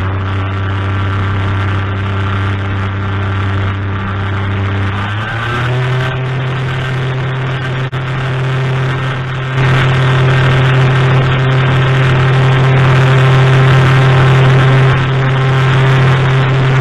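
Ultralight aircraft engine and propeller running steadily. About five seconds in, the pitch rises as the throttle comes up, and about ten seconds in the sound gets louder.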